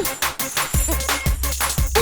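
Electronic background music with a driving drum beat and deep bass.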